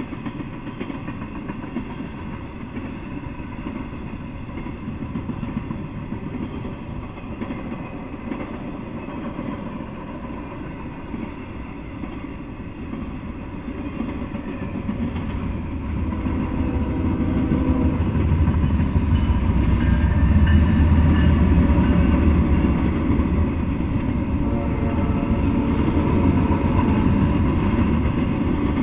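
Intermodal freight train passing, its cars carrying truck trailers and double-stacked containers rolling by on the rails with a steady rumble of wheels. The rumble grows louder about halfway through.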